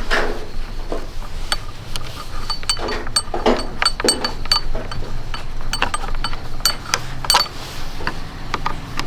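Metal tools and motorcycle parts clinking and tapping during a repair: a string of irregularly spaced sharp metallic clicks, each with a short ring.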